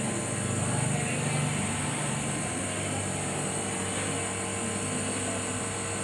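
Nebulizer compressor motor running with a steady hum.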